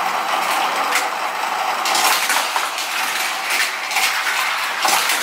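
Small die-cast toy cars clattering around a plastic racetrack set, pushed along by its fast-spinning wheel: a steady mechanical whirr with many rapid plastic clicks and knocks.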